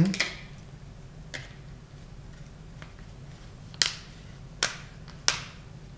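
Plastic back cover of an LG LTE True HD smartphone being pressed onto the handset, its clips snapping into place with a series of sharp clicks, the three loudest in the last couple of seconds.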